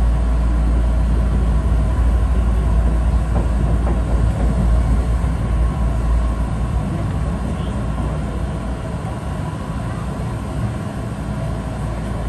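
Keihan 1000 series electric train running, heard from inside its cab: a steady low rumble of wheels on rail with a faint steady hum above it, easing off a little about halfway through.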